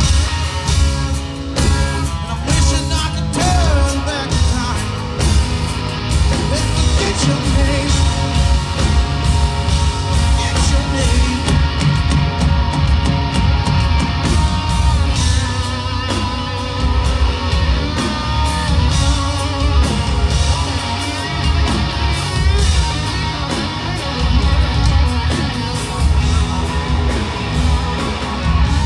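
Rock band playing live through a large stage PA: two electric guitars over a drum kit, loud and continuous, with bent guitar notes about three seconds in.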